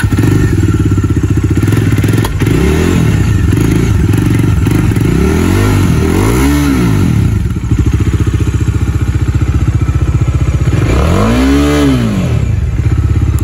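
Bajaj Dominar 400's 373 cc single-cylinder engine, freshly started, idling in neutral and blipped twice: the revs rise and fall back about six and a half seconds in and again near the end.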